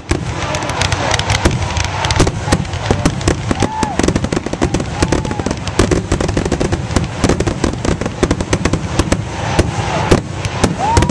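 Aerial fireworks shells bursting in a rapid, continuous barrage, several bangs a second with no pause.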